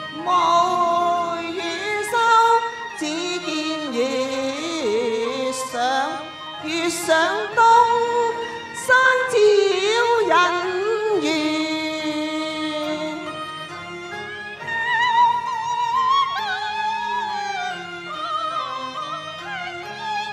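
Cantonese opera duet singing: a woman's voice sung into a microphone with wide vibrato and sliding pitch, over instrumental accompaniment.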